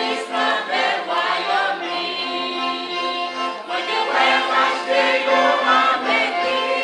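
Large mixed church choir of men and women singing a gospel hymn together in several voices.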